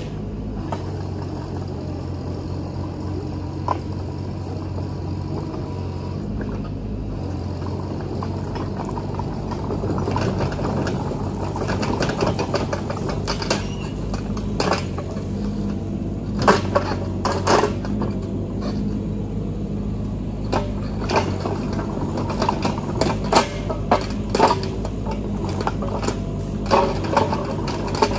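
Mini excavator's diesel engine running steadily, with sharp knocks and clanks coming often through the second half.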